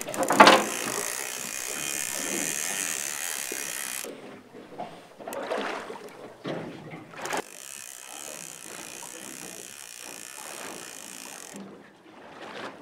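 Multiplier fishing reel buzzing and clicking under load during the fight with a fish on a bent rod, in two long stretches that stop abruptly about four seconds in and again near the end. A sharp knock just after the start is the loudest sound.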